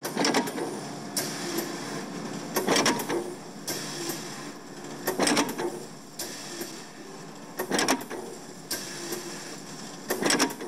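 Intro sound effects for sliding machine panels: mechanical whooshes and clunks every second or two over a steady hum.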